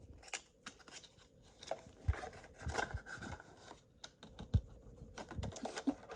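Trading cards being handled and flipped through: a run of quick clicks, scrapes and rustles of card stock, with a couple of soft thumps, the loudest about four and a half seconds in.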